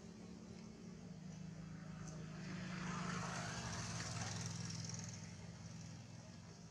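A motor engine running steadily, growing louder about halfway through and then fading again.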